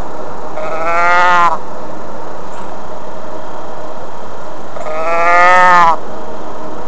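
Two drawn-out lowing calls from a large animal, cattle-like, each about a second long with a slight rise and fall in pitch, about four seconds apart, over steady background noise.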